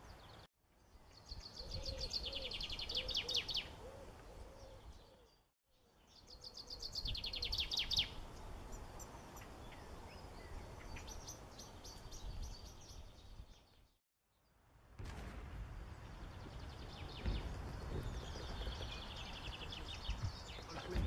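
Songbirds singing: a fast trill of rapidly repeated high notes twice in the first eight seconds, then scattered chirps, over a low rumble of outdoor noise. The sound cuts out abruptly three times.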